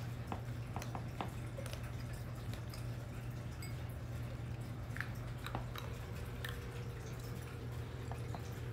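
Bengal cats crunching dry kibble: irregular, crisp clicks of chewing and of kibble against a ceramic bowl, over a steady low hum.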